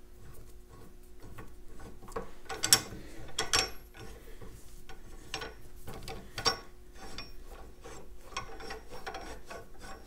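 Steel slide hammer shaft being screwed by hand into a threaded puller attachment: metal threads scraping and clicking irregularly, with a few sharper metallic clicks.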